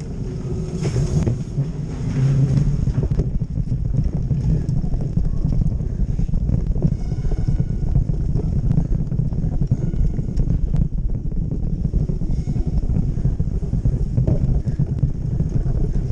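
Cyclocross bikes riding fast over a sandy arena floor: a continuous low rumble of tyres and rattling bike parts, with wind buffeting on a camera moving with the riders.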